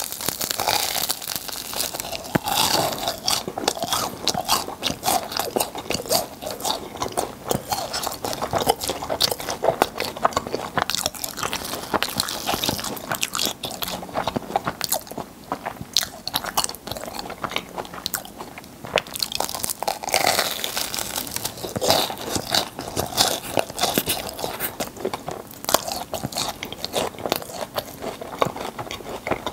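Crispy fried churros with a filling being bitten and chewed close to a clip-on mic: dense crunching of the crust with wet chewing in between.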